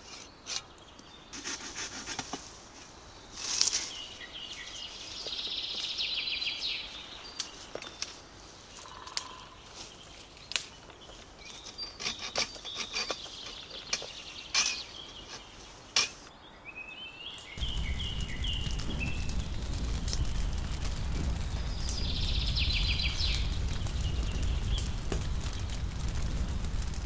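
Irregular sharp knocks of a machete striking and stripping shoots and branches on a pomegranate tree. After about 17 seconds this gives way to a steady low rumble from a small wood fire burning under a kettle.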